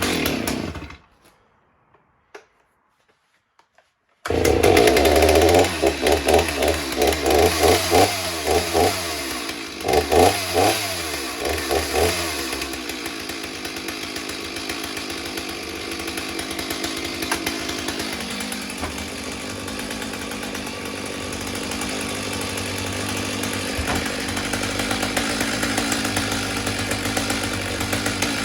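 Stihl 039 two-stroke chainsaw starting up on a test run after a service: it starts about four seconds in, is revved in quick throttle blips for several seconds, then settles into a steady idle.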